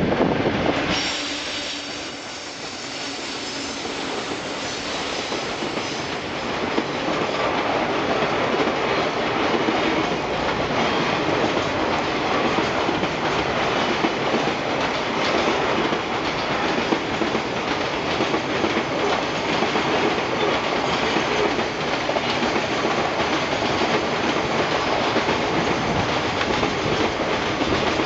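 Freight train's wagons rolling past at speed: a continuous clatter of steel wheels on the rails with some wheel squeal. A louder passage fades away in the first couple of seconds, then the rolling noise builds and holds steady.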